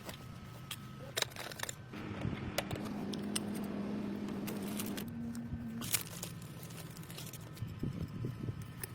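Scattered light clicks and taps of hand tools and metal parts being handled on an engine. A faint steady low hum runs from about two seconds in to about six seconds in.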